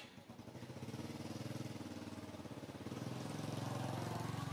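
A small engine running steadily with a low hum, growing gradually louder.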